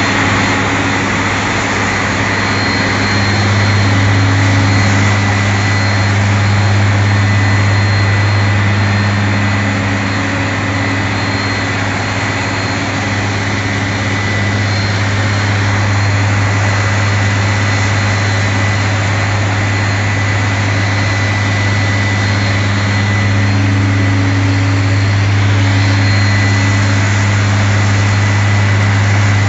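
Fire engine's engine idling steadily: a deep, even hum with a faint steady high whine over it.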